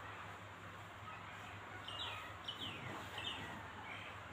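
Small birds chirping faintly in the background: a handful of short, quick falling notes from about halfway in, over a steady low hum.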